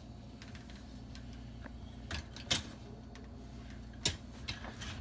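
A few sharp clicks and taps from the dishwasher's upper rack and its rail adjuster being handled and seated, over a faint steady hum.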